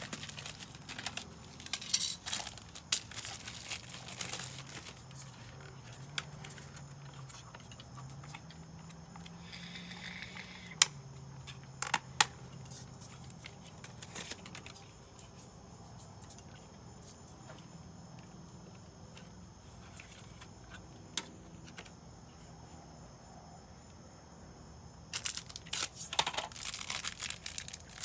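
Handling noises from work on the outlet: rustling and crinkling with scattered sharp clicks, the two loudest clicks a little before and about a second after the middle, and a denser burst of rustling near the end.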